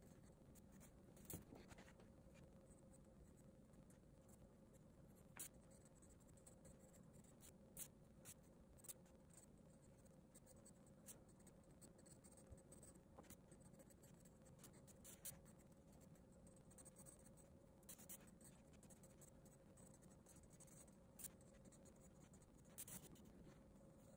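Graphite pencil scratching across drawing paper as long straight lines are drawn, faint, with scattered light ticks of the pencil against the paper and a low steady hum beneath.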